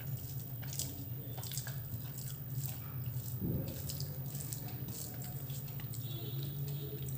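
A person eating rice close to the microphone: wet squishing and smacking of chewing, with many small clicks, over a steady low hum.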